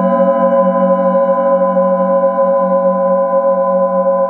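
Handheld singing bowl ringing after mallet strikes: a sustained chord of steady overtones over a slowly pulsing low hum, with one soft tap about half a second in.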